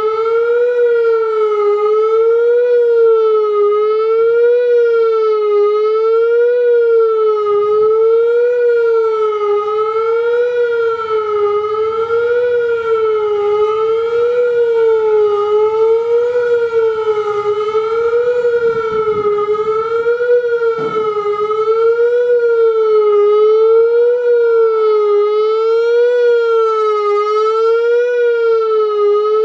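Whelen WPS-3000 electronic outdoor warning siren sounding its fast wail (attack) signal for a test, the pitch rising and falling steadily about every two seconds.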